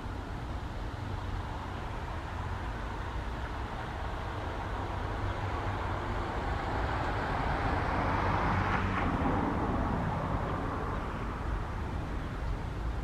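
A road vehicle passing by: a haze of tyre and engine noise swells, peaks about nine seconds in and fades again, over a steady low rumble.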